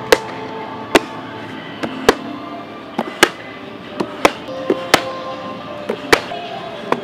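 Juggling cigar boxes clacking together in sharp knocks, roughly one a second with a few quick doubles, over background music.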